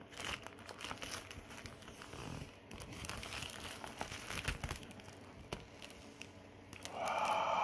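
Plastic shrink-wrap being peeled off a hardcover book: irregular crinkling and crackling, then a louder, steady tearing rasp near the end.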